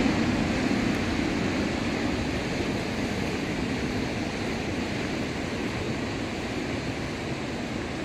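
Steady rushing noise of ocean surf breaking on the rocky shore below, mixed with wind, a little louder at the start.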